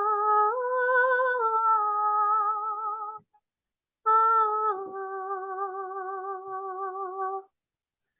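A woman singing wordless long notes with a wavering vibrato; the first phrase steps up in pitch and breaks off about three seconds in, then after a short pause she holds one long wavering note that stops shortly before the end.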